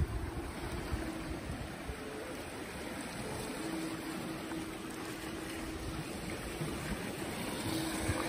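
Sea waves washing and lapping against shoreline rocks, a steady rushing of water.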